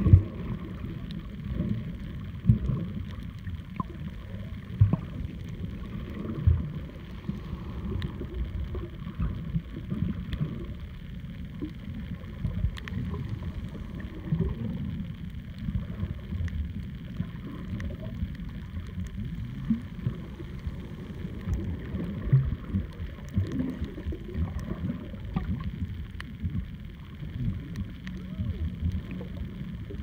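Muffled underwater noise picked up by a submerged camera: a low, uneven rumble of moving water with frequent soft knocks and bumps.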